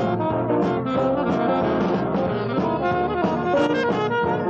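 Recorded band music with a horn section, trombone, trumpet and saxophone, playing a busy jazz-flavoured line without a break.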